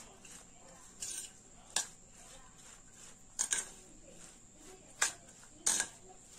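A metal spoon stirring a thick mayonnaise, corn and onion mix in a stainless steel bowl, clinking sharply against the bowl about five times at uneven intervals, with soft stirring between the clinks.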